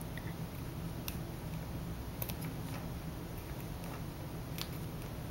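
Small scissors snipping the end of a satin cord: a few faint, separate clicks over a steady low hum.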